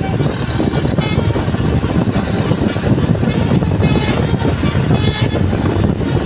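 A bus's engine and road noise making a loud, steady low rumble. Its Basuri telolet musical horn sounds in short tones about a second in and again around four and five seconds in.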